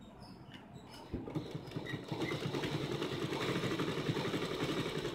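Sewing machine starting about a second in and running steadily, its needle stitching a second line through cotton fabric along neck piping. The run is a fast, even patter of stitches.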